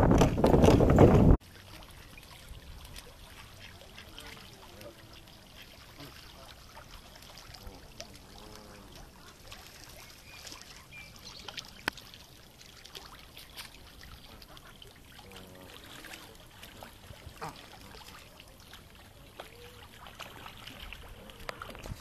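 Wind buffeting the microphone for about a second and a half, cutting off suddenly; then faint outdoor ambience with a few soft wavering sounds and light clicks.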